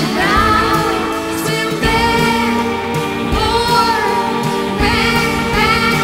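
Music: a song with a singing voice carrying a wavering melody over steady held chords.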